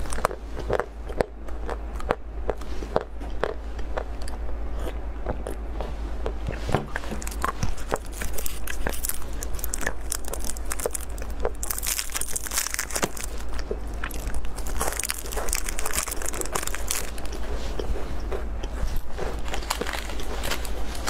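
Close-up biting and chewing of chocolate bars, many short crisp crunches and clicks. Roughly twelve to seventeen seconds in, the crinkling of a plastic candy wrapper being handled rises over the chewing.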